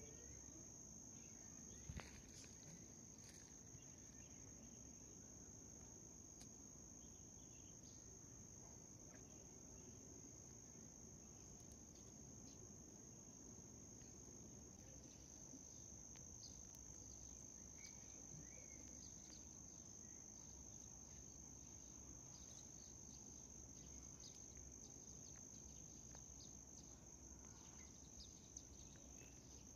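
A cricket's faint, steady, high-pitched trill, one unbroken tone, with a few faint clicks.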